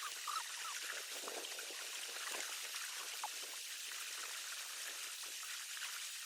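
River water trickling and gurgling: a steady rushing hiss with many small, irregular drips and splashes.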